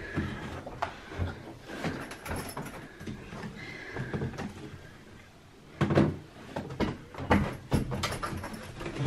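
Knocks and thuds of a heavy wheeled suitcase being hauled up a flight of stairs. The thuds grow louder and come in a quick run over the last few seconds.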